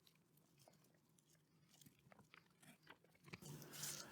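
Near silence, with a few faint clicks of small tools being handled on a workbench and a brief rustle of handling near the end.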